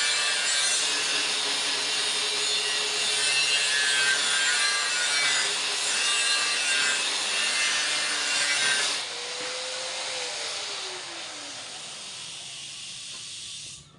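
Angle grinder cutting with a harsh, steady hiss. About nine seconds in the cut stops, and the motor's whine falls in pitch as it winds down.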